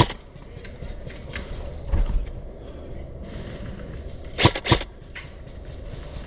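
Two sharp airsoft gun shots in quick succession about four and a half seconds in, with faint scattered clicks and a dull thump earlier.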